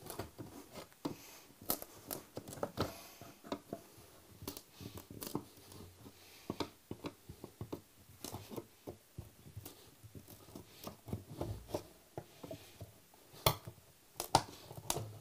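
Small pry bar prying carpet tack strip up off a wood floor: an irregular run of scrapes, creaks and clicks as the strip is worked loose, with a few sharper knocks near the end.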